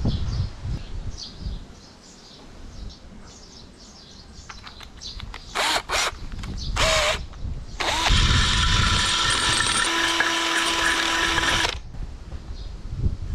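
Cordless drill running in a few short bursts, then steadily for about four seconds before stopping abruptly.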